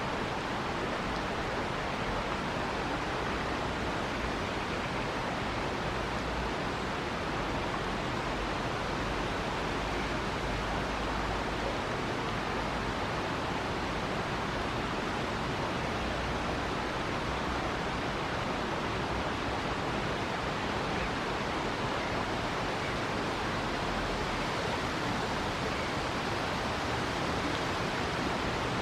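River water rushing, a steady even hiss with no changes.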